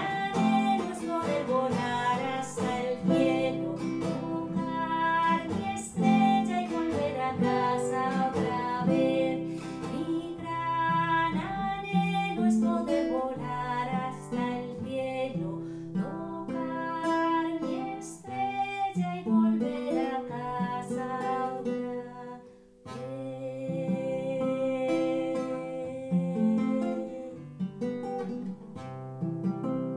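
Classical guitar played alone, strummed and plucked chords, with a brief break about three-quarters of the way through before a held chord.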